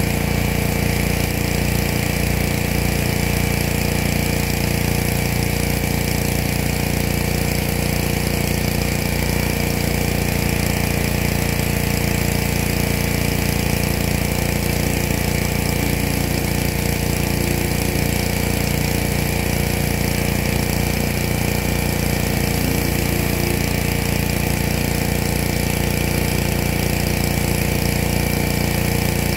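Pressure washer running steadily, its motor holding one even pitch without change.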